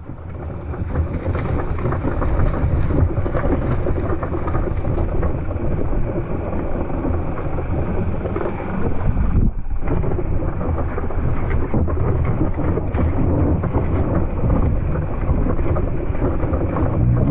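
Mountain bike descending a dirt trail: wind rushing over the camera microphone, with tyres rolling over dirt and rocks and the bike rattling in many small irregular clicks. The noise drops out briefly about halfway through.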